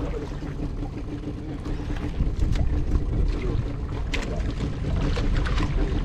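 A small fishing boat's engine running steadily, a low hum under wind and sea noise, with a few sharp clicks over it.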